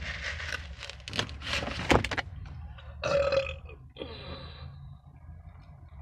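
Rustling and handling noise with a sharp click about two seconds in, then a woman burps about three seconds in after drinking carbonated soda, followed by a shorter, softer burp.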